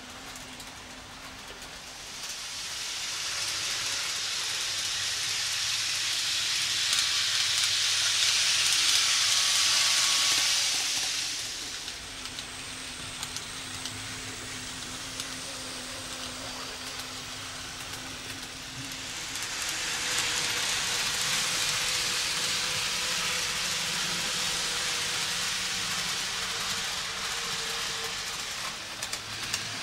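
Kato N gauge Class 800 model train running on the layout track: the hissing rattle of its wheels on the rails swells up twice as it passes close by, over a faint steady motor hum.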